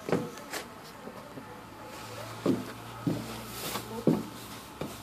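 Handling noise from a phone being moved while filming: about half a dozen short knocks and bumps, with a low steady hum coming in about two seconds in.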